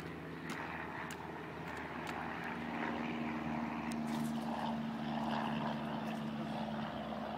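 Distant engine drone: a steady hum that comes in about two and a half seconds in and grows a little louder, with a few light taps.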